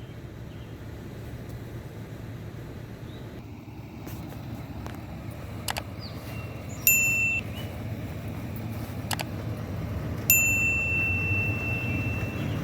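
Vehicle engine idling steadily, with two sharp clicks and two electronic chime tones, the second held for a couple of seconds.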